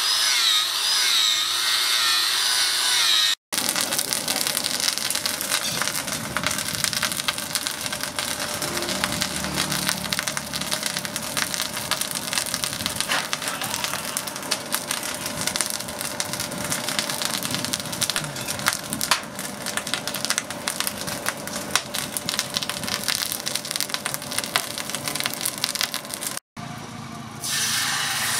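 Angle grinder with a flap disc grinding a steel knife blade, its whine wavering in pitch, cut off after about three seconds. Then a forge fire of glowing coals crackling with many small pops while the blade heats. Near the end, a hiss as the hot blade is quenched in a water trough.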